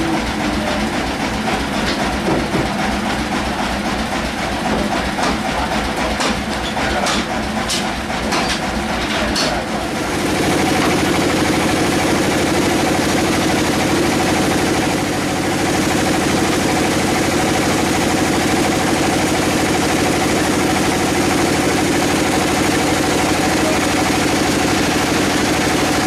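Sawmill machinery running: a rhythmic low chugging with several sharp clicks, which about ten seconds in changes abruptly to a louder, steady machine hum.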